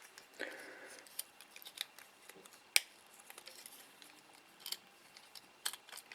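Scattered small clicks and ticks from hands and small tools handling tiny plastic drone parts during reassembly, with one sharper click near the middle and a brief rustle near the start.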